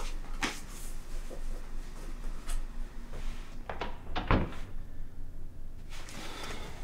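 Door and household handling noises in a small room: scattered light clicks and knocks, with one heavier, low thump a little over four seconds in.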